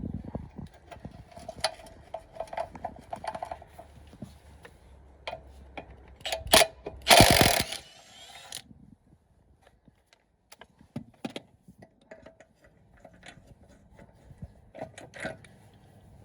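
Hand tools working on car axle parts: scattered metallic clicks and clinks with ratchet-like clicking, and a short loud harsh burst of noise about seven seconds in.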